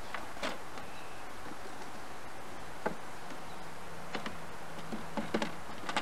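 Wooden hive frames clicking and knocking lightly against the hive box as they are slid into place, with more knocks near the end. Honeybees hum faintly underneath, a steady drone starting about halfway through.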